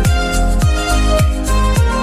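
Background music with a steady beat: a deep kick drum about every half second under held notes, with no singing.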